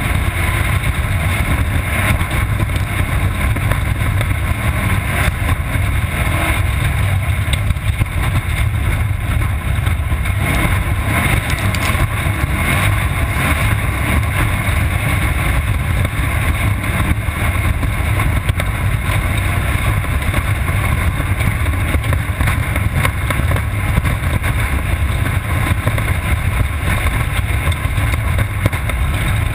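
Off-road race car engine running at speed, heard through a camera mounted on board: a loud, steady low rumble with constant rattling and knocks.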